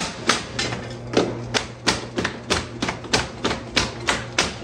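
Power hammer pounding a Stopbox Pro pistol lockbox encased in a block of ice: a fast, even run of heavy strikes, about three a second, over a steady low hum.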